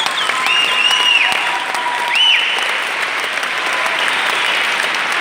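Crowd applauding, with a loud, high human whistle that rises, holds and drops, twice: once near the start and again about two seconds in.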